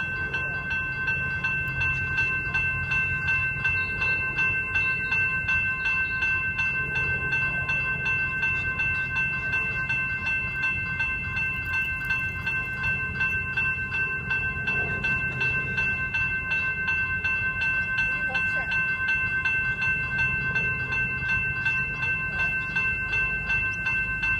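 Level-crossing electronic bells (General Signals E-bells) ringing rapidly and steadily, the warning that the crossing is active and a train is due. A low steady rumble runs underneath.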